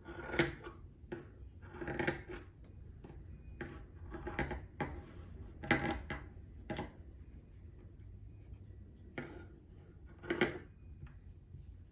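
Fabric scissors snipping through cloth: about seven separate cuts at uneven gaps of one to two seconds, over a low steady hum.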